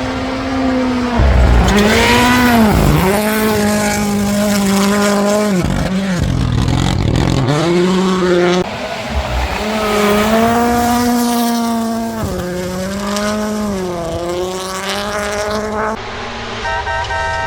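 Rally car engine at full throttle, revs holding high and then dropping sharply on lifts and downshifts before climbing again, several times over.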